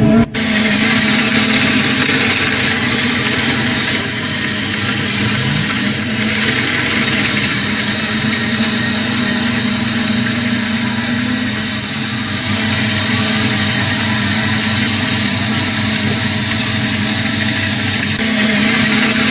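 Diesel engine of heavy construction machinery running steadily, with a brief break just after the start.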